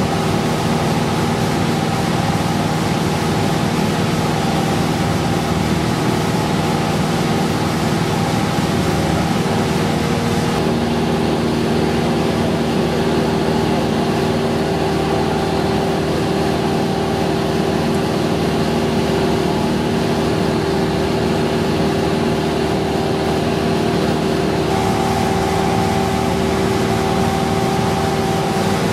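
Cessna 172's piston engine and propeller droning steadily in flight, heard inside the cabin, a constant hum of several fixed tones over wind noise. The sound turns duller about a third of the way in and brightens again near the end.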